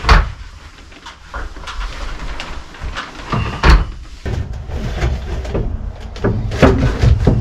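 Irregular knocks and bangs of carpentry work: a loud one right at the start, another about four seconds in, and several near the end.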